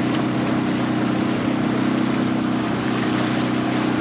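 Outboard motor of an inflatable boat running at a steady, unchanging speed, over a hiss of water moving past the hull.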